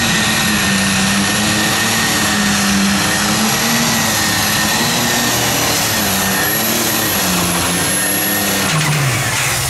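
Super stock pulling tractor, an Allis-Chalmers 8030 with a turbocharged diesel, running flat out under load as it drags a weight-transfer sled. The engine note wavers slightly over a steady high-pitched turbocharger whine. Near the end the whine stops and the engine revs drop as the pull finishes.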